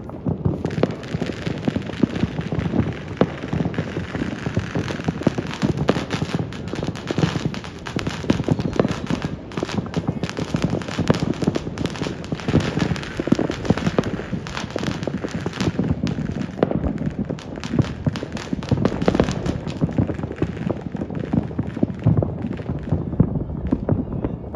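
Many fireworks and firecrackers going off at once across a city, a dense, unbroken crackle of pops and bangs with no single burst standing out.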